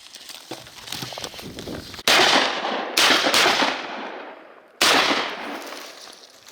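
Three shotgun shots fired at ducks in flight: two about a second apart, then a third nearly two seconds later, each fading out over about a second.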